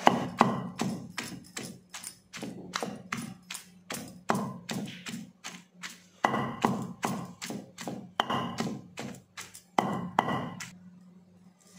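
Wooden pestle pounding okra and green chillies with spice powder in a stone mortar: repeated dull thuds, about three a second, stopping near the end.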